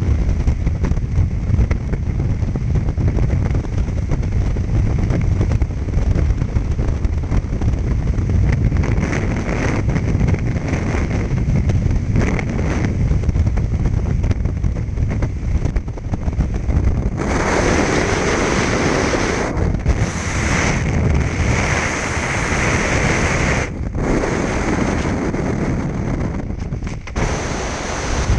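Heavy wind noise on a skydiver's helmet-camera microphone in freefall, a steady rushing low rumble. About two-thirds of the way in it turns into a harsher, brighter hiss that cuts out and comes back abruptly several times.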